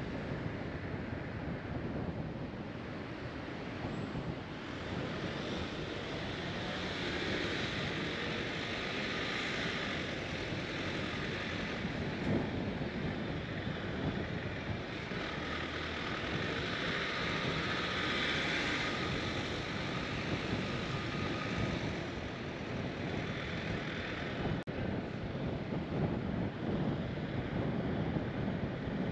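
Road noise from a car being driven: a steady hiss of tyres and wind over the engine, swelling and easing a couple of times with speed.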